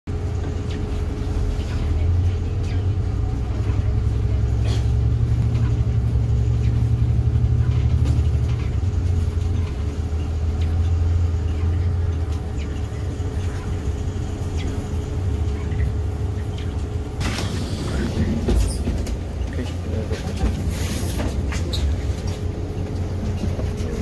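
City bus heard from inside its cabin while driving: a steady low engine rumble with a constant whine running under it. About two-thirds of the way through, a hiss and scattered clatter join in.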